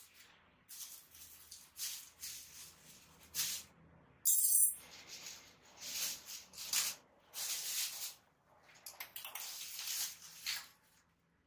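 Irregular bursts of scratchy, rustling noise from a hand working the pan and tilt wheels and keys of a DMX lighting console, with the loudest, sharpest scrape about four and a half seconds in.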